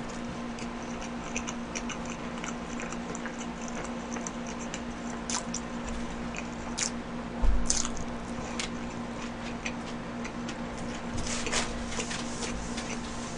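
Close-miked chewing of a fast-food burger: many small wet mouth clicks and smacks over a faint steady hum, with a dull bump about seven and a half seconds in.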